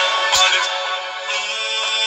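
Music playing.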